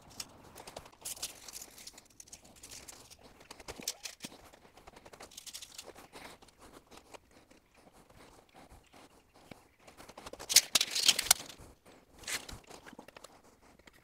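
Footsteps and shuffling on loose gravel, a scatter of short crunches, with a louder flurry of gravel crunching about ten and a half seconds in and another near twelve seconds.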